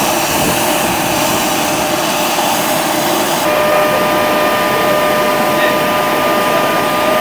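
Jet aircraft noise on the airport apron: a loud, steady hiss. A little over three seconds in, a steady whine of several tones joins it and holds.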